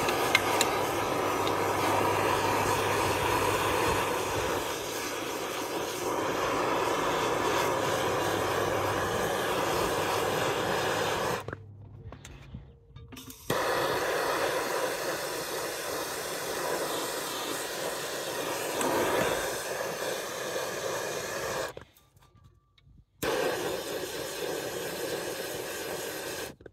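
Hand-held propane torch burning with a steady hiss as it heats shrink tubing over coaxial cable connectors. The sound drops out twice, for a second or two each time.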